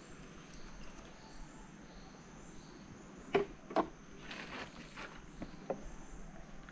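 Faint steady insect chirring from the palm swamp. A few sharp clicks and knocks break in, the two loudest close together about three and a half seconds in.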